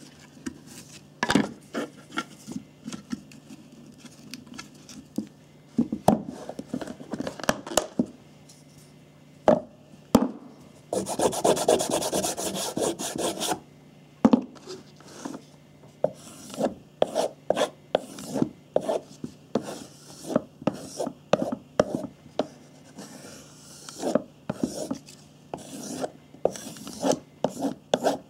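Knife blade stroked along a sharpening stone in many quick, repeated strokes. Before that come scattered clicks and knocks as the stone and its case are handled, and a burst of fast rubbing about eleven seconds in.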